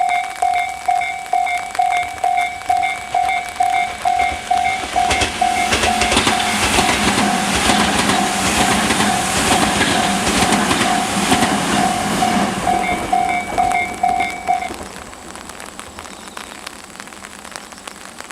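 Japanese level-crossing warning bell of the Tobu Tojo Line type, ringing about two and a half strikes a second, while a Tobu 100 series Spacia electric limited express rushes past with wheel noise and clacking from about 5 to 13 seconds in. The bell stops about 15 seconds in once the train has cleared.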